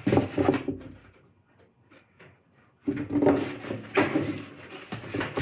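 A tight-fitting foamcore insert scraping and rubbing against the sides of a metal toolchest drawer as it is pushed and worked into place, with a few knocks. It goes in two spells, the first about a second long, the second starting about three seconds in.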